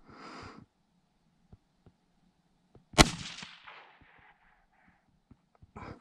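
A single shot from a scoped Savage 93R bolt-action rifle in .17 HMR: one sharp crack about halfway through, dying away over about a second.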